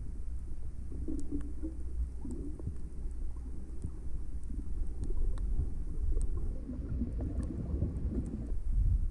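Muffled underwater rumble of moving water, heard with the microphone submerged, with faint scattered clicks.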